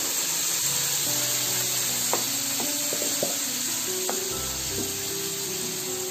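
Freshly added onion, coconut and green chilli paste sizzling steadily in hot oil in a nonstick frying pan, stirred with a wooden spatula. The spatula knocks against the pan a few times between about two and four seconds in.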